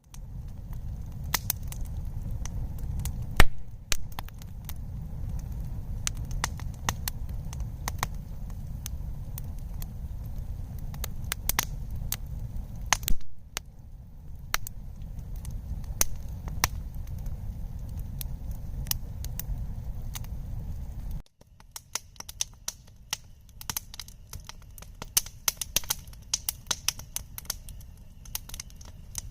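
Wood campfire crackling and popping: irregular sharp snaps over a low rumble, with two louder pops early and mid-way. About two-thirds of the way through the rumble drops away suddenly, and the crackles come thicker and quicker.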